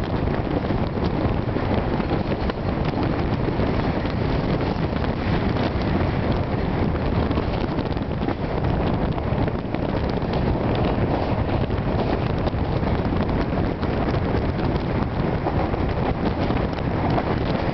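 Wind rushing over a microphone held out of the window of a moving passenger train, over the steady running noise of the train on the rails as it climbs a mountain line.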